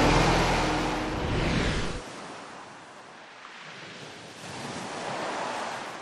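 A heavy military truck's engine running low and steady as it drives off a landing craft's ramp, fading and cutting off abruptly about two seconds in. Then a quieter wash of wind and water noise follows, swelling slightly near the end.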